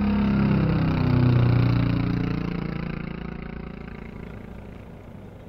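An engine's drone, loud at first, that falls in pitch and fades away over a few seconds, like a machine passing by.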